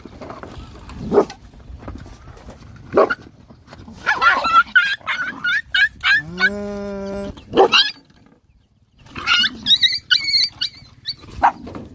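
A pack of dogs and puppies squabbling over food: a few short sharp snaps or barks, clusters of high-pitched puppy yelps and squeals, and one steady cry about a second long in the middle.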